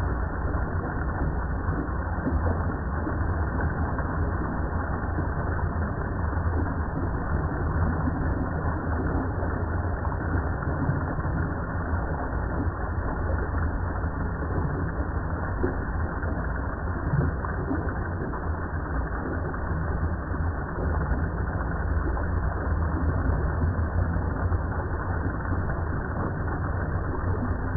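Steady, muffled rush of water sprayed up into the underside of a BMW R 1300 GS rear mudguard and spray deflector, with a heavy low rumble and no break.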